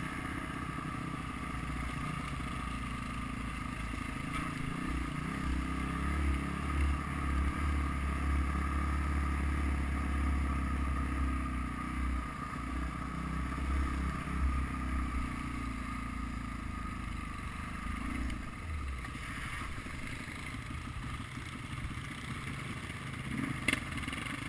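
Dirt-bike engine running under way on a rough trail, louder through the middle stretch, with rattling from the bike over the uneven ground. There is a single sharp knock near the end.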